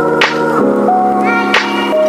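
Background music with a steady beat: held chords and a sharp snap-like hit on each beat.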